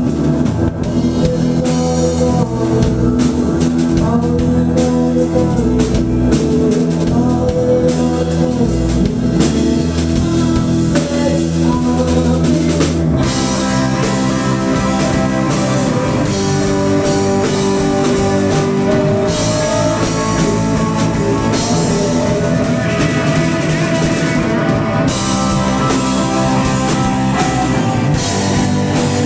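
Live rock band playing: electric guitar, bass guitar, drum kit and keyboards, with vocals faint in the mix. About 13 seconds in the band moves into a denser section with more cymbal.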